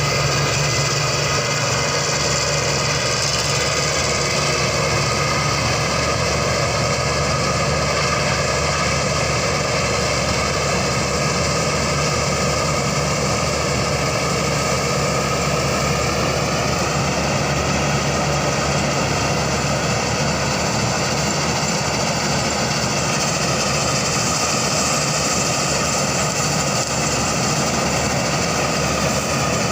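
Claas Crop Tiger 40 combine harvester's diesel engine and machinery running steadily. The engine note rises a little about halfway through and eases back down later on.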